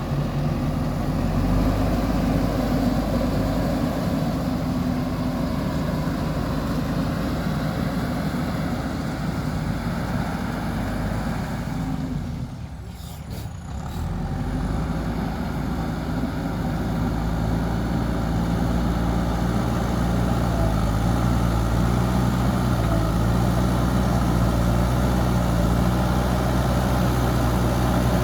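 JCB 3DX backhoe loader's diesel engine running steadily under work, briefly dropping away about halfway through before picking up again.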